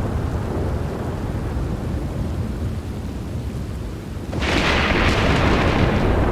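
Thunderstorm: a low rolling rumble of thunder, then a sudden sharp crack of thunder a little over four seconds in, with rain.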